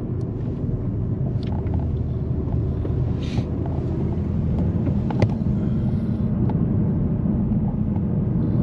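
Steady low rumble of a Honda Civic driving, with engine and road noise heard from inside the cabin. A faint click comes about five seconds in.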